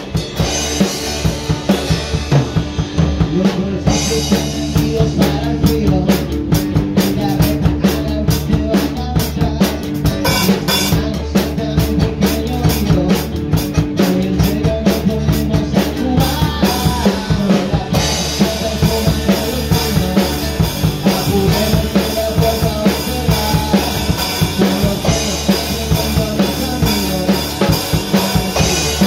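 Rock band playing live, with drum kit and cymbals loudest, close up, over electric and acoustic guitars and bass. A sung vocal joins in the second half.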